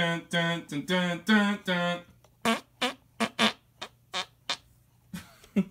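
Imitation fart noises made by a person. First comes a run of about five loud buzzing blasts, each held at a steady pitch. Then, through the rest, come about nine short, separate ones.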